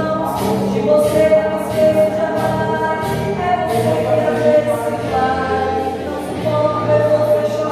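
Slow gospel hymn music with sustained, choir-like chords moving in steps over a bass line.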